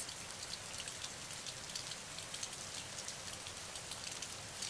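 Steady rainfall: a constant hiss dotted with many small drop ticks.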